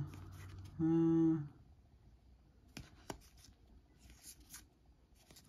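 A short hummed 'mm', one steady held note, about a second in. Then faint clicks and papery rustles of trading cards being slid apart and flipped through in the hands.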